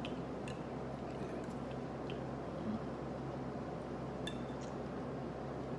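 A few light clinks of cutlery against plates and dishes during a meal, over a steady background hum.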